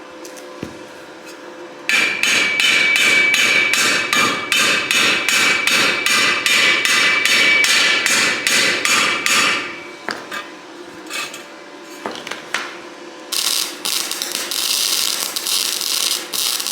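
Welding on steel trampoline-frame tubing: the arc crackles and buzzes steadily for about eight seconds, stops, and a second weld starts a few seconds before the end.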